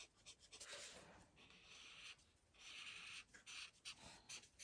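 Faint strokes of a skin-tone marker rubbing across paper as a page is coloured in, about five short hissing strokes.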